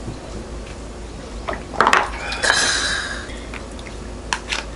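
Tableware clattering during a meal: scattered clicks of utensils on dishes, with a louder clatter about two seconds in followed by a brief ringing scrape.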